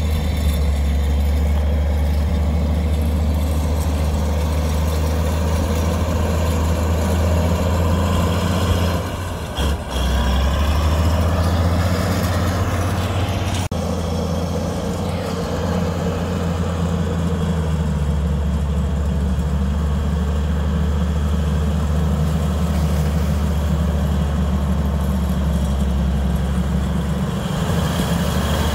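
Heavy diesel engine of a snow-clearing earthmoving machine running steadily, a deep low drone with a brief drop about nine to ten seconds in.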